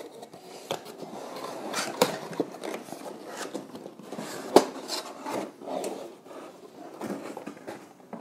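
Cardboard box and packing being handled: rustling and scraping of cardboard with scattered clicks and knocks, the loudest a sharp knock about halfway through, as an automatic chicken coop door is unpacked.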